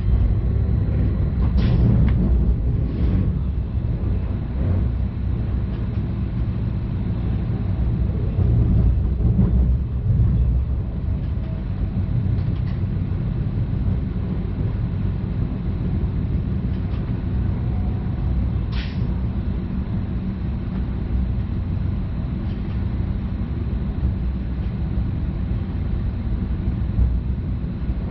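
Stadler FLIRT (Sm5) electric commuter train heard from the driver's cab, running with a steady low rumble. A few brief sharp clicks come through, two near the start and one about two-thirds of the way in.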